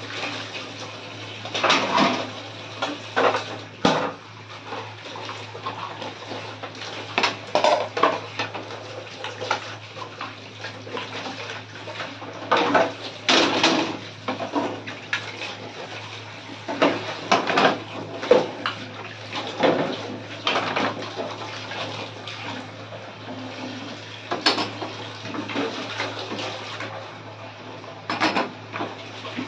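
Stainless steel pots and utensils being washed by hand, with irregular metallic clattering and clanking as they are handled and set down, over running, splashing water.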